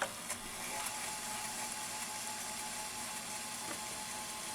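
The VHS mechanism of a 2005 Samsung DVD/VCR combo running the tape in reverse, a steady mechanical whir with a faint high whine that comes in under a second in.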